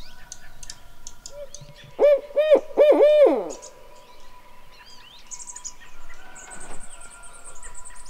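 Barred owl hooting: a quick run of four or five loud hoots about two seconds in, each rising and then falling in pitch.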